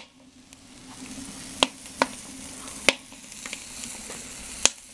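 Burger frying in a foil pan on a wood-fired rocket stove grill: a steady sizzle with four sharp pops scattered through it.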